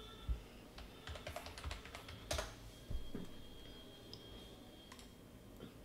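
Faint typing on a computer keyboard: scattered key presses, a quick run of keystrokes about a second in, and single sharper taps near the start, at about two seconds and at about three seconds.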